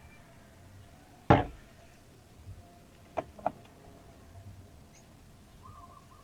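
One sharp knock with a brief ring about a second in, then two light clicks a couple of seconds later: a hand tool knocking and clicking against a car door's trim panel while its screw is being removed.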